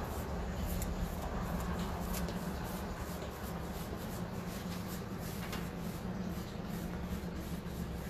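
Paintbrush stroking chalk paint onto bare sanded wood: a soft, scratchy brushing of repeated strokes. A steady low hum runs underneath.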